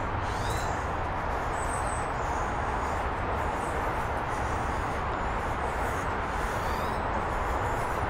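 Steady outdoor rushing noise, with a few short, faint high-pitched bird chirps over it.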